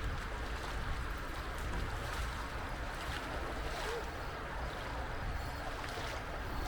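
Steady rushing of a mountain stream flowing over rocks, with a low rumble underneath.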